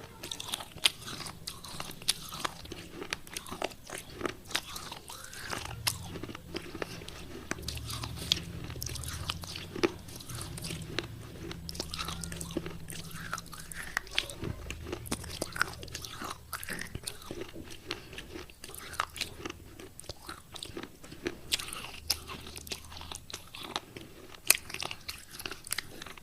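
A person biting and chewing pieces of wet clay pot, with a steady run of irregular crunches and crackles.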